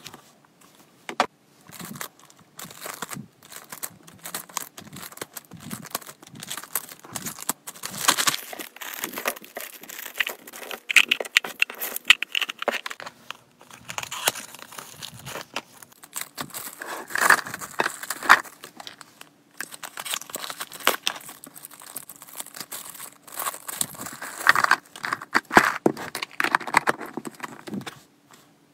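Hands handling hamster-treat packaging: plastic packets crinkling and rustling, with irregular clicks and taps as clear plastic storage boxes are picked up and handled.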